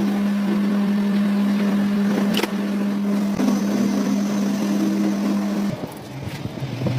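Electric power tool motor running at a steady pitch, stopping a little before six seconds in; shortly after, a lower-pitched steady hum starts up.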